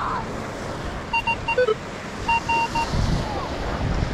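Vanquish 540 metal detector giving short, high beeps as its coil sweeps over a buried metal target: a quick run of three, one lower blip, then three more about a second later.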